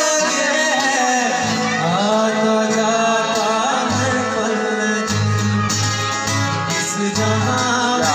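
A song playing: a singing voice over instrumental backing with a steady bass line.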